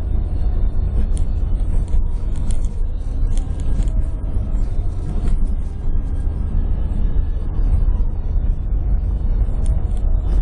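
A vehicle driving over a rough sand track, heard from inside the cabin: a steady, heavy low rumble of engine and tyres, with a few brief clatters from the body or cabin.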